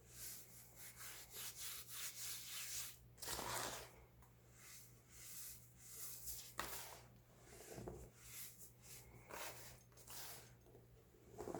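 Compacted baking soda being crushed and crumbled in a run of short, gritty crunches, with a longer, louder crunch about three seconds in and a sharp crack a few seconds later.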